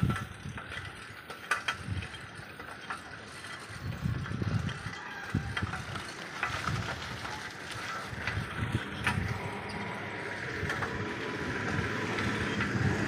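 Bicycle being ridden: scattered clicks and rattles from the bike over a patchy low rumble, with a rushing noise that grows louder toward the end.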